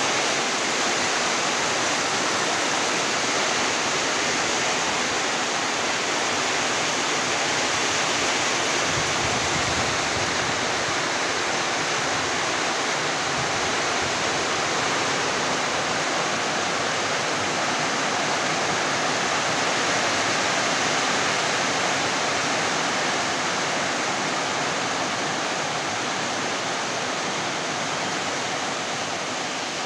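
Steady rain falling, an even hiss that eases slightly near the end.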